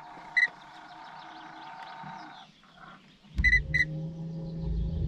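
Electronic beeps from a Haswing 80 lb 24 V bow-mount trolling motor as its anchor (position-hold) mode is engaged: one short beep, then two quick beeps about three and a half seconds in. A faint steady hum stops about two and a half seconds in, and right after it the motor starts running with a low steady drone that grows louder as it begins holding the boat on the spot.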